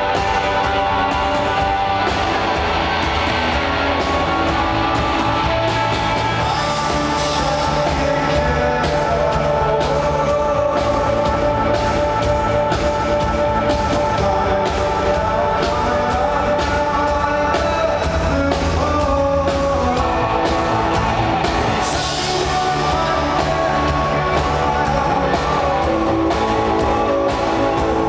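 Live rock band playing loud through a concert sound system: a steady drum beat under guitars with a lead vocal, and cymbal crashes swelling about seven seconds in and again about two thirds of the way through.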